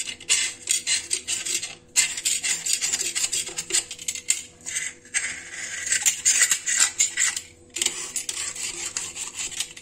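Utility knife blade scraping old, yellowed silicone sealant off the tiled floor along the base of a ceramic toilet: rapid scraping strokes with a few short pauses. This is the stripping of the old seal before new silicone is applied.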